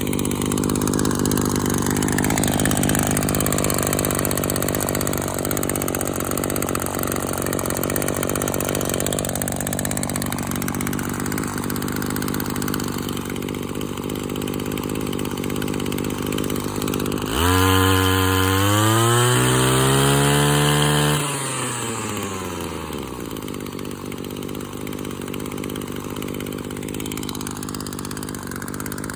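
Maruyama Big M KC26NX1 brush cutter's small two-stroke engine idling steadily, revved hard a little over halfway through for about three and a half seconds, its pitch climbing, then dropping back to idle.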